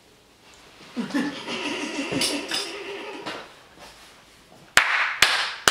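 Boys laughing and groaning in disgust at a foul-tasting mouthful. Near the end come two sharp slaps, under half a second apart.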